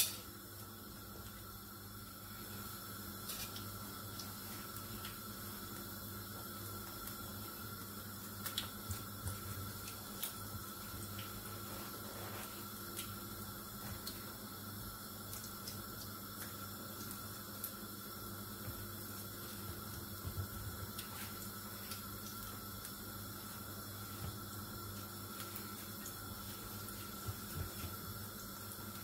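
Apple doughnuts frying in hot oil in a pan, a steady sizzle. There is a sharp click at the very start and a few light clicks about a third of the way in.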